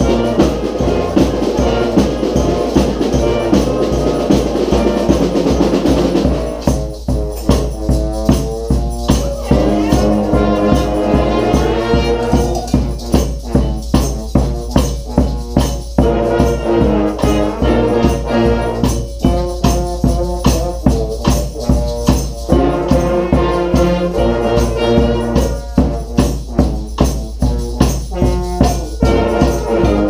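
Brass street band playing a rock tune together: sousaphone, trumpets, trombones and saxophones over drums. About six seconds in, the sustained wall of horns gives way to punchier riffs over a steady drum beat of about two strokes a second.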